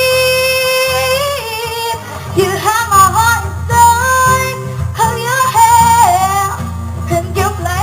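Recorded pop music with a female singing voice and guitar, played loud through a mobile DJ sound system during a sound check.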